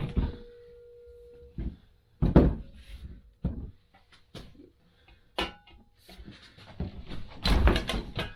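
Scattered knocks and clunks of hand tools and rubber against a small motorcycle wheel as the tire bead is broken loose by hand. The loudest knock comes about two seconds in, and a quick run of clunks follows near the end.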